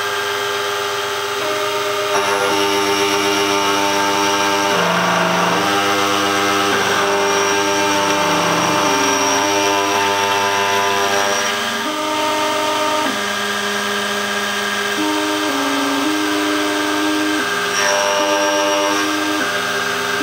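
Bianchi Laser 994 electronic key cutting machine milling the second side of a high-security key. The cutter runs steadily while the machine's drive whines in tones that shift up and down in pitch every second or two as it traces the cuts.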